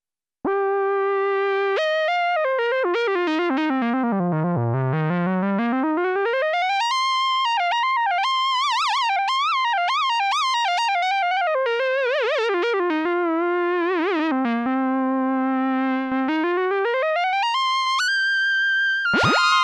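A Sequential Prophet-10 analog synthesizer plays a bright single-line preset whose pitch slides smoothly from note to note. It swoops low about four seconds in, climbs high, wavers in places, and steps back down. Near the end a different sound with several notes at once comes in.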